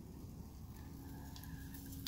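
A small wood fire burning in a Dwarf 3kw Lite wood stove, with a couple of faint crackles over a low steady hum.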